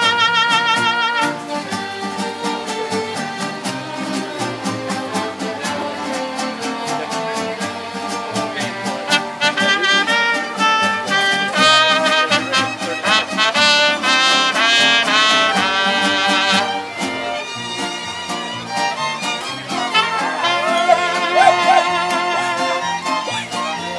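Live mariachi band playing, trumpets carrying the melody with violins.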